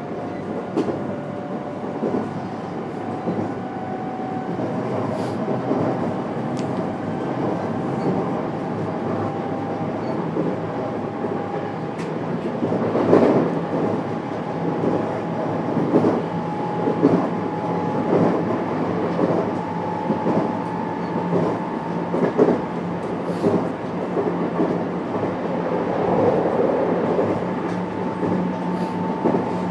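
Running sound inside a JR West 321-series electric train's motor car: the traction motors' whine climbs slowly in pitch as the train gathers speed. The wheels knock over rail joints again and again.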